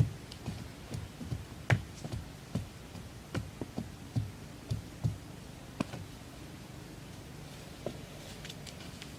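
Irregular knocks and taps of hand building work, about a dozen in the first six seconds, then only one or two.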